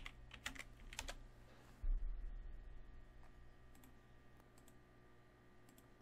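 Computer keyboard keys typed in a quick run of clicks during the first second or so, then a single dull thump about two seconds in, followed by a faint steady hum.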